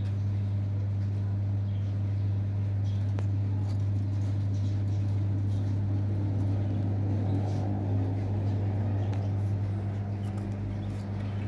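A steady low hum with faint scattered clicks.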